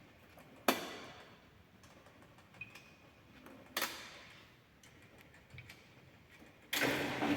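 AEG Öko Lavamat 4100 washing machine clicking sharply twice, then a motor or pump in the machine starting up with a steady hum near the end.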